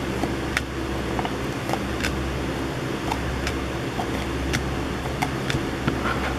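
Trading cards slid by hand one at a time off a stack, making short sharp clicks and ticks at about two a second, over a steady mechanical hum.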